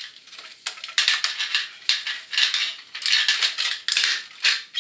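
Rubber seal being worked onto the plastic base of a toilet flush valve: repeated scratchy rubbing and scraping strokes of rubber on plastic, with small clicks.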